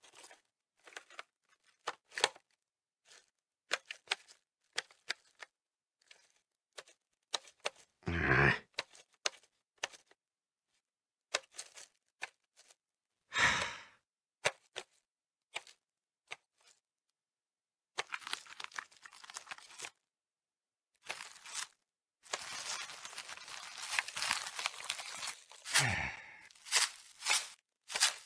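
Plastic wrap pulled from its box, with crinkling, sticking and tearing in short scattered crackles and a longer run of continuous crinkling near the end. Two exasperated sighs break in, about 8 and 13 seconds in.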